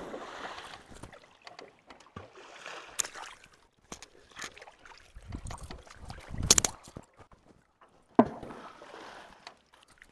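Stones thrown into a stream, splashing into the water a few times, the loudest splash about six and a half seconds in.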